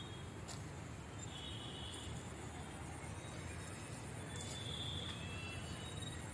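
Quiet outdoor ambience: a steady low rumble with a few faint, short high chirps.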